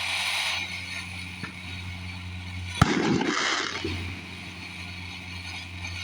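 A consumer firework, "Northern Lights", going off: a short hiss at the start, then a sharp bang about three seconds in followed by about a second of hissing. A steady low hum runs underneath.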